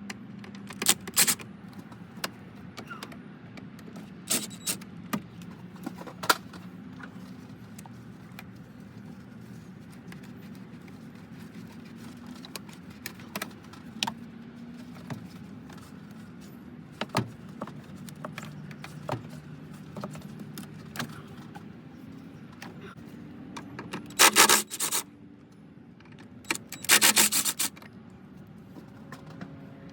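Hand tools and engine-bay parts being handled: scattered clicks, knocks and rattles over a low steady hum, with two louder bursts of rapid clicking near the end.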